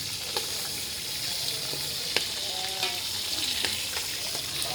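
Food sizzling in hot oil in a pot over a wood fire: a steady high sizzle with a few sharp crackles.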